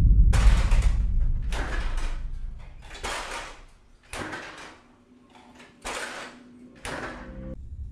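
A refrigerator door swinging open and shut over and over, heard as about six separate rushing knocks, each fading within a second. Under the first of them a deep low boom dies away over about three seconds.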